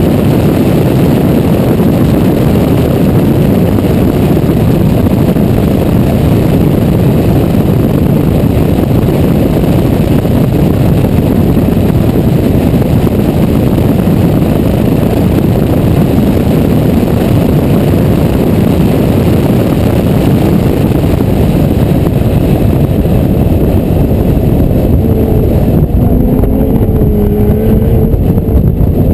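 Porsche 991 Carrera GTS at speed with its flat-six engine running under heavy wind rush on the outside-mounted camera. Near the end the engine's note comes through more clearly, changing pitch in steps.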